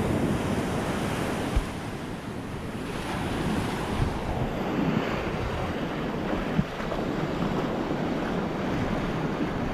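Sea surf washing steadily onto the beach, with wind blowing over the microphone and a few brief low thumps from gusts.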